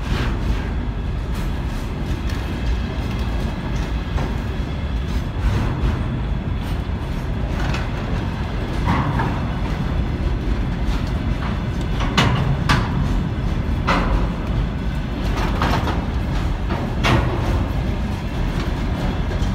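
Container freight train's loaded flat wagons rolling past close by: a steady low rumble of wheels on rail, broken by sharp knocks every second or two that come thicker and louder in the second half.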